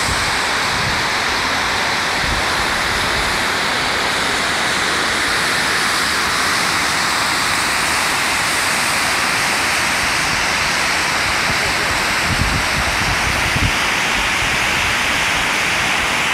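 Large mountain waterfall cascading down a rock face: a loud, steady rush of falling water. Two brief low bumps come about three-quarters of the way through.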